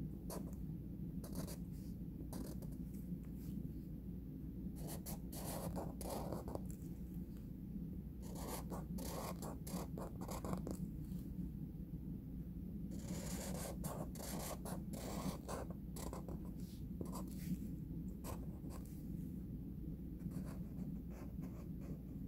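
Felt-tip marker drawing on paper: short scratchy strokes in bursts with pauses between, over a steady low hum.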